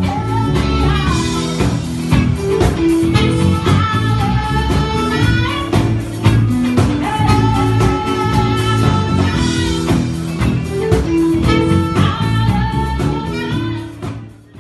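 Live funk band playing: a steady bass line and drums under guitar and a sustained melody line, fading out near the end.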